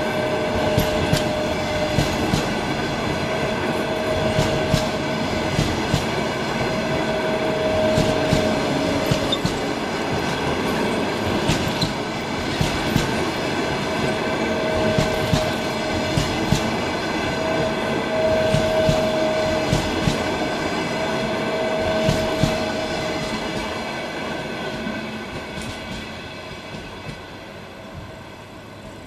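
Passenger coaches rolling past on the rails, the wheels clicking over the rail joints, with a squeal that comes and goes in stretches of a second or two. The sound dies away over the last few seconds as the tail of the train moves off.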